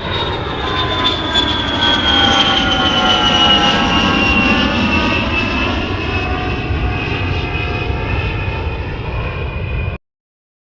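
Airplane engine noise: a loud low rumble with whining tones above it that slowly fall in pitch. It cuts off abruptly near the end.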